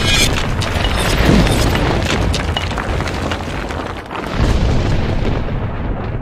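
Cinematic logo-reveal sound design: a deep boom with a long low rumble and scattered crackles of flying debris. A second swelling hit comes about four seconds in, and the sound fades near the end.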